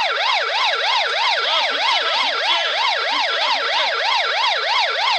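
Police car siren on its fast yelp setting, a steady pitch rising and falling about four times a second.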